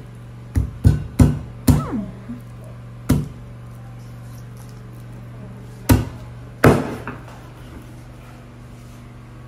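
Kitchen knife chopping down through food onto a small wooden cutting board: about seven sharp, irregular chops, four close together in the first two seconds, then a few more spaced out.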